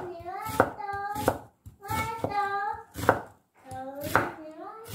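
Kitchen knife slicing through an onion and striking a wooden cutting board, about six sharp chops spaced roughly a second apart. A child's high voice vocalizes in held, bending notes between the chops.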